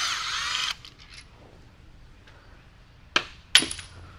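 Metal-on-metal clatter from BMW S54 engine teardown work. A short scraping rattle comes at the start, then two sharp clanks a little past three seconds in, the second ringing briefly, as a metal part drops and bounces.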